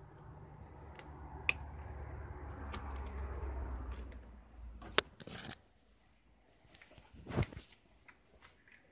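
Close-up handling of a metal motorcycle brake-lever lock as it is fitted over the handlebar grip and squeezed front brake lever: a low rubbing and scraping noise that swells and fades over the first few seconds, with scattered sharp clicks, the sharpest about five seconds in.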